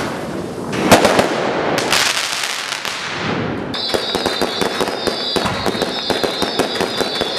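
Consumer firework cakes and aerial shells going off. Two loud bangs with crackling tails come about one and two seconds in. From about four seconds in a rapid string of sharp pops follows, with a high steady whistle over it.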